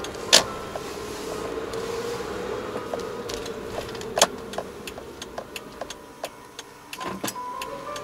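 Car interior while driving slowly: a steady low engine and road hum with scattered sharp clicks and taps from the cabin.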